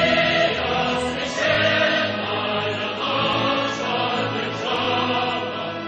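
Recorded choral music: a choir singing held chords over a steady low accompaniment.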